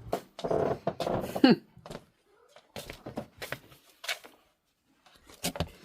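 A house cat meows, one call about a second long that falls in pitch at its end, followed by a few light knocks and taps.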